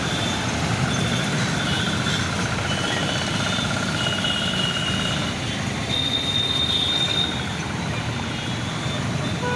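Steady road traffic noise, with high steady whining tones that come and go through the middle.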